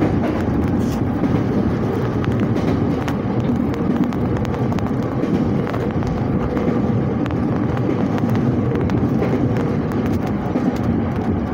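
Electric commuter train running at speed, heard from inside the carriage: a steady rumble of wheels on rail with scattered light clicks and rattles.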